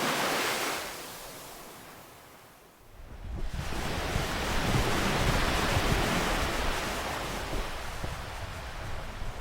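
Ocean waves breaking: one wash fades away over the first three seconds, then the next wave crashes in about three seconds in and its surge slowly eases off.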